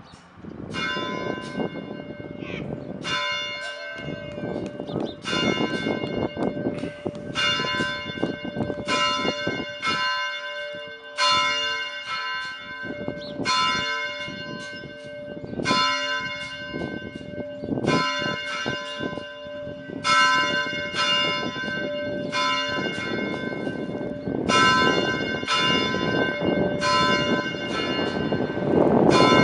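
A single church bell being rung, struck about once every two seconds, each stroke ringing on into the next.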